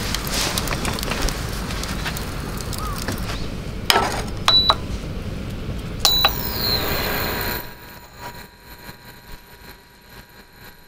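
A wood fire crackling, then the touch buttons of a portable induction cooktop pressed twice, each press giving a click and a short high electronic beep, about four and six seconds in.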